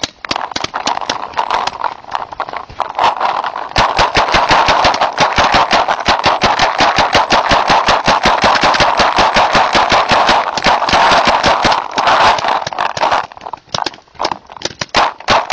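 Paintball markers firing in a rapid, continuous stream of sharp pops, many shots a second. The firing thins to scattered shots near the end.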